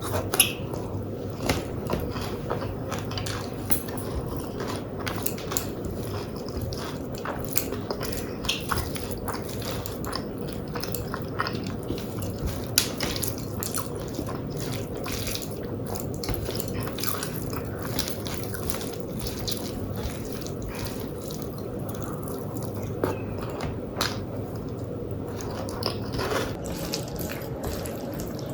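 Close-miked mouth sounds of eating a Bengali rice-and-dal meal by hand: wet chewing, lip smacks and many small irregular clicks.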